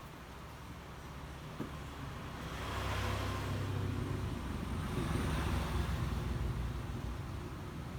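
A road vehicle passing by, building up about two seconds in and easing off near the end, over a steady low hum.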